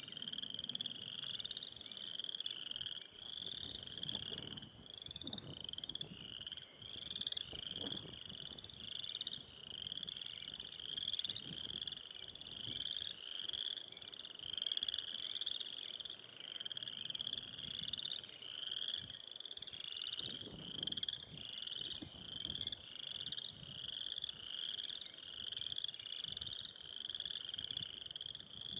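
A chorus of frogs calling: high, short calls repeated over and over without a break. Wind gusts rumble on the microphone now and then.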